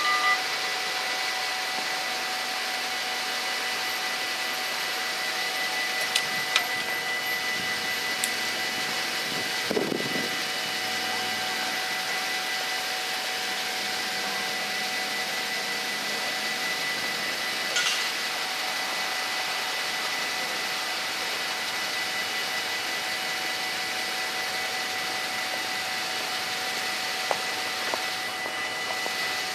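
Level-crossing bells cut off right at the start as the half-barriers finish lowering. After that comes a steady hum of street traffic and idling vehicle engines while the crossing waits for the train, with a brief passing-vehicle sound about ten seconds in.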